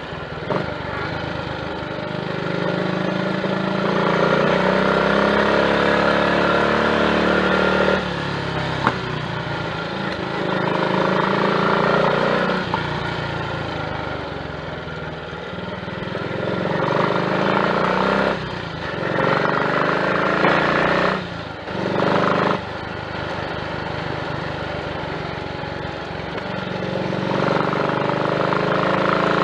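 Triumph Tiger Cub's single-cylinder four-stroke engine pulling along on the road, the revs climbing and easing off several times, with a few brief dips in level. It is running smoothly with no misfiring, on a freshly fitted carburettor slide, needle, needle jet and main jet that leaned out a rich mixture.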